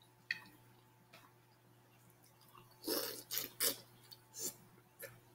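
Close-up eating mouth noises: a light click near the start, then a cluster of short smacks and sucks about three seconds in as food goes to the mouth.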